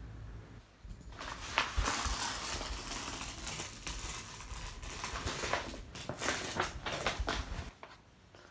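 Gift-wrapping paper being ripped and crumpled off a cardboard box, a busy run of tearing and crinkling that starts about a second in and dies away shortly before the end.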